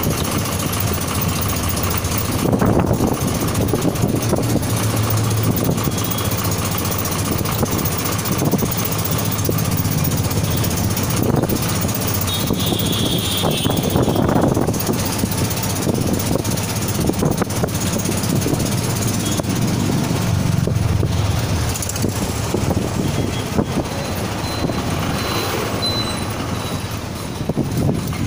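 Steady engine hum of a motor vehicle driving through city street traffic, with a constant wash of road and traffic noise.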